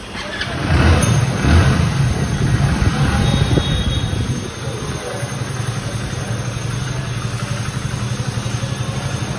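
Hero Splendor Plus Xtec's 97 cc single-cylinder engine starting about half a second in, blipped unevenly for a couple of seconds, then settling into a steady idle.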